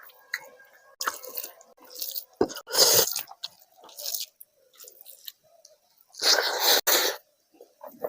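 Close-miked wet eating sounds: chewing and smacking of rice with curry and gravy. They come in uneven spells, loudest about three seconds in and again near the end.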